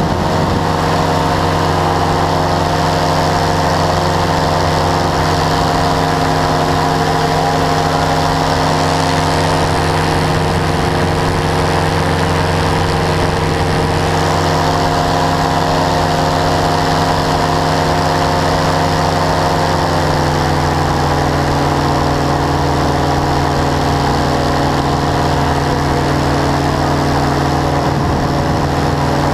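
Powered parachute's engine and propeller running steadily in flight. About twenty seconds in, the engine note steps down slightly as it slows.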